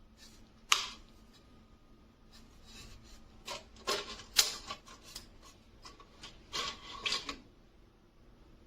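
Handling noise: scraping and rubbing with scattered sharp clicks, the loudest about a second in, then two clusters of clicks and scrapes in the middle and near the end.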